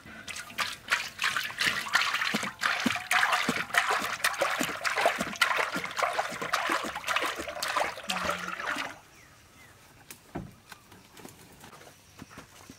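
Cooking oil pouring in a heavy stream from a large plastic jug into a big metal wok, splashing into the pan. The pouring stops suddenly about nine seconds in.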